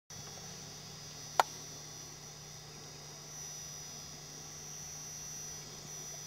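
Steady background of a low hum and a thin high-pitched whine, broken once by a single sharp click about a second and a half in.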